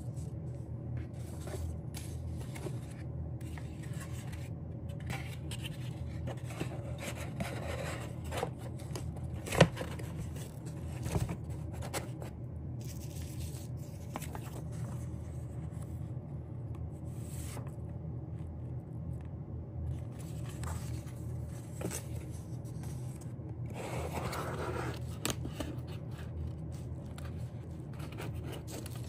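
Hands handling an album's paper and cardboard contents: faint rustling, scraping and small clicks over a steady low hum, with one sharp tap about ten seconds in and a brief rustle near the end.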